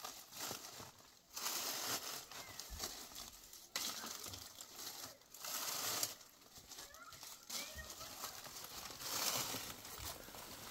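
Dry fallen leaves crunching and rustling, underfoot and as they are scooped up by hand, in irregular bursts.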